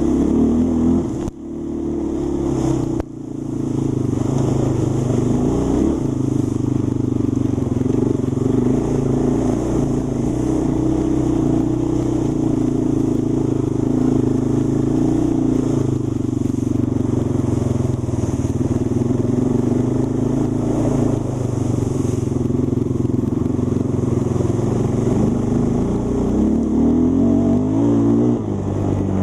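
Engine of an off-road vehicle running under load on a rough dirt track. Its pitch rises and falls with the throttle, the sound drops away briefly twice in the first few seconds, and it revs up near the end.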